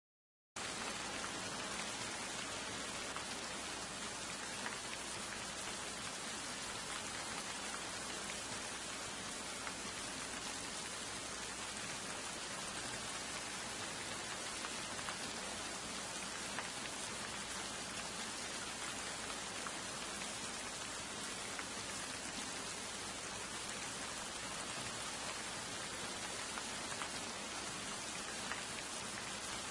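Steady rain falling, a continuous even hiss that starts abruptly about half a second in.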